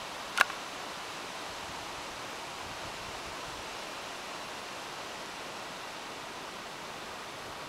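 Steady, even hiss with one sharp click about half a second in.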